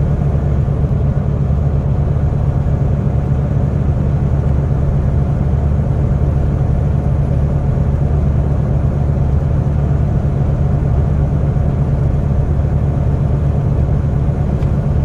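Semi-truck's diesel engine and road noise at cruising speed: a steady low drone with no change in pitch or level.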